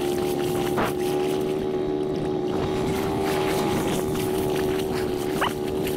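ATV engine running steadily at a constant pitch, with wind noise.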